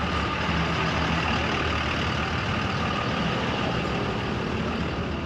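A vehicle engine running steadily, a low, even hum under a broad wash of noise.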